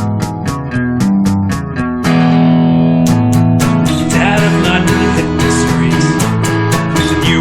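Background music led by guitar, with a regular beat; it gets fuller and louder about two seconds in.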